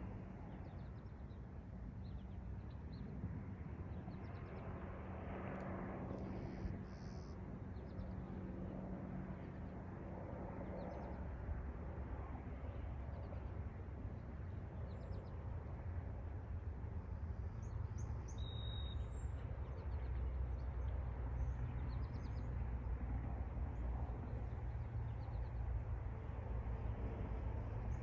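Wind blowing steadily, with a low rumble of wind on the microphone that grows stronger about halfway through. Faint, scattered bird chirps come and go over it.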